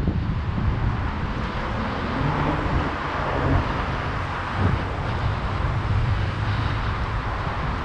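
Wind rushing over a GoPro's microphone as a fixed-gear bicycle is ridden at speed, with road noise and city traffic underneath; a vehicle's engine hum comes and goes about two to five seconds in.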